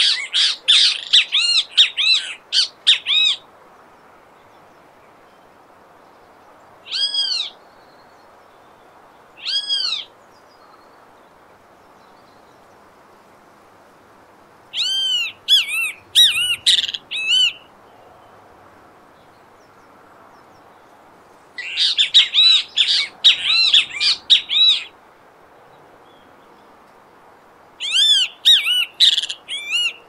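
Great kiskadee (bem-te-vi, Pitangus sulphuratus) calling: four runs of quick, arched, ringing notes lasting a few seconds each, with two single calls between them, separated by pauses.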